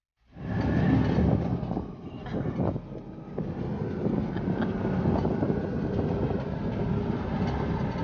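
An auto-rickshaw on the move: its small engine running with road noise and occasional knocks and rattles, cutting in suddenly just after the start.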